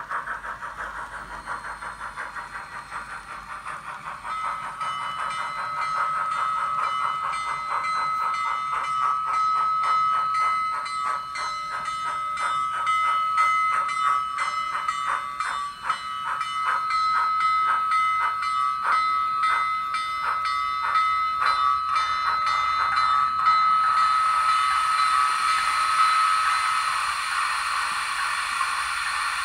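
Sound-equipped N scale Union Pacific FEF-3 steam locomotive (Kato model with an ESU LokSound decoder) playing a steady rhythm of steam exhaust chuffs through its small onboard speaker, over a steady high tone. A hiss comes in near the end, and the sound grows louder as the locomotive draws close.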